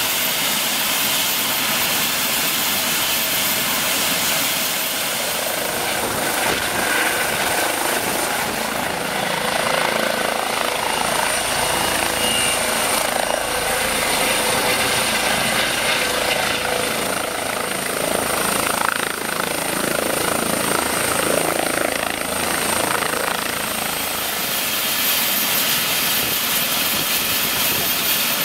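Eurocopter EC135 helicopter running, its twin turbines and rotors making a continuous noise with a high steady whine, first on the ground and then hovering low. The sound grows a little louder through the middle.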